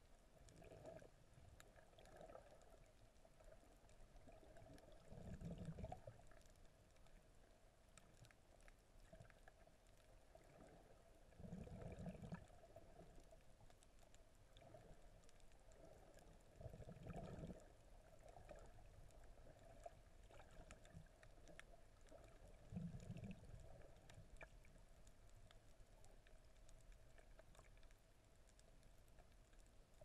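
Near silence from a camera held underwater, broken by four faint, muffled low surges of moving water, about six seconds apart.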